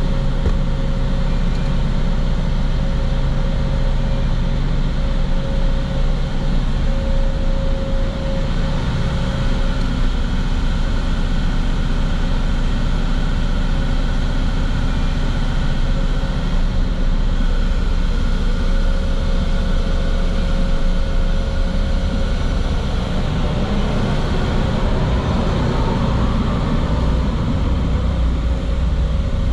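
Vehicle engine running steadily: a low rumble with a constant mid-pitched hum over it that fades and returns.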